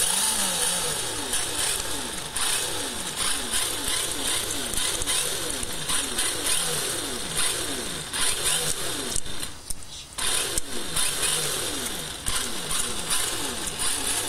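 Toyota 86-bodied RC drift car revving in quick throttle blips, each falling away in pitch, about two a second, with a short break about nine and a half seconds in.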